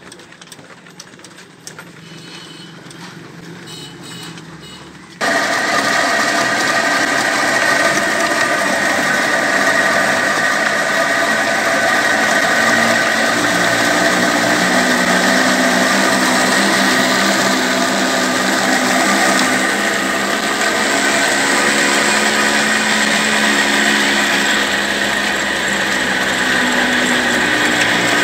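Belt-driven machinery powered by an old 25 HP diesel engine running steadily: a line shaft, flywheels and flat belts turning a grain mill. About five seconds in the sound jumps suddenly much louder, to a dense, steady mechanical whine with several held tones.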